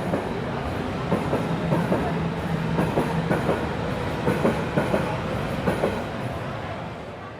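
Train rolling along the track: a steady rumble with repeated clacks as the wheels cross rail joints, fading out near the end.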